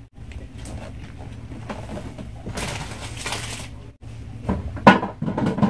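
Cardboard boxes and packaging being handled and shifted: a scraping rustle in the middle, then sharp knocks near the end, one of them loud.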